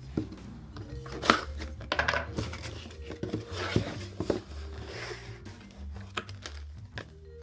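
A cardboard shipping box being cut open with a knife and unpacked: tape tearing, several sharp knocks and scrapes of the cardboard being handled, and a plastic bag crinkling near the end. Quiet background music plays underneath.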